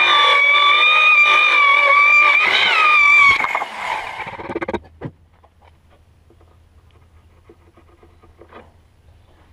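Handheld electric circular saw cutting along a chainsaw-milled board: a loud, steady high motor whine that rises briefly in pitch near the end of the cut, then winds down and dies away over a second or so. Afterwards only faint clicks and taps over a low hum.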